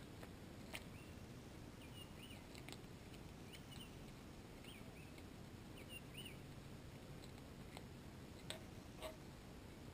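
Near quiet: a small bird chirps faintly in short squeaky notes several times, with a few soft clicks.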